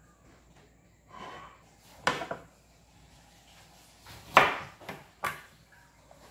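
Kitchen knife knocking against a plastic cutting board as a lemon is cut in half: a few short, sharp knocks, the loudest about four seconds in.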